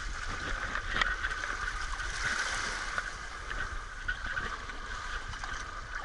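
Shallow seawater sloshing and lapping, with a light knock about a second in.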